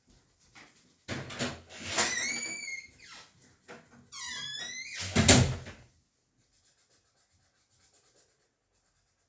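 A knock, then high squeaky creaks with wavering pitch: one long squeak about two seconds in and a run of quick falling squeaks about four seconds in. They are followed by a loud thump just after five seconds.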